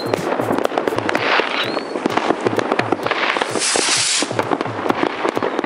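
Fireworks going off: a dense run of sharp bangs and crackling pops with two short rising whistles. About three and a half seconds in, a rocket launches with a rushing hiss.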